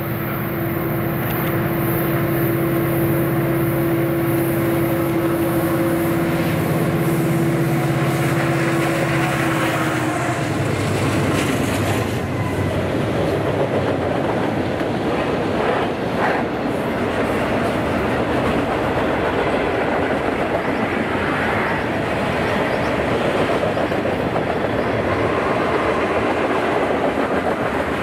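Freight train passing close by. A steady pitched drone from the lead diesel locomotives falls slightly in pitch and gives way about ten seconds in to the continuous rolling rumble and clickety-clack of the freight cars' wheels on the rails.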